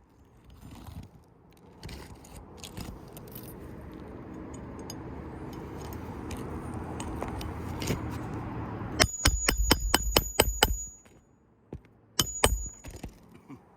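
A rushing noise builds up slowly, then stops as a quick run of sharp metallic clinks starts, about five a second for under two seconds. Two more clinks follow shortly after.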